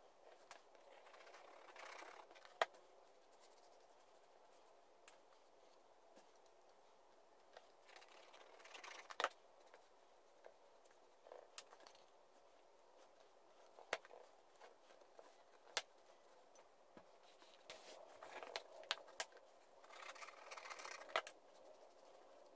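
Quiet handling of small wooden blocks: soft scraping and rubbing of wood, with a few sharp light knocks as the pieces are set down or tapped together.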